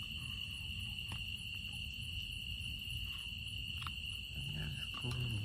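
Crickets trilling steadily in the night forest, over a low rumble, with a few faint clicks from a gas stove being handled.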